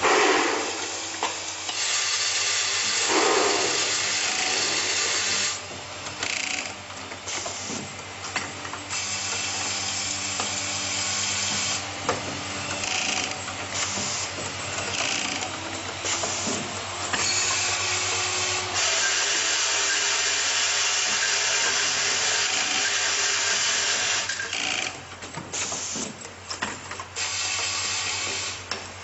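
Automatic assembly and screw-fitting machine running through its cycle: a steady hum under long stretches of hiss that stop and start every few seconds, with short mechanical clicks in the gaps, as its air-driven grippers and screwdriving head work.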